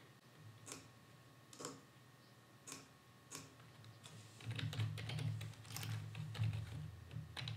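Computer keyboard typing, faint: a few separate keystrokes, then a quicker run of typing from about four and a half seconds in.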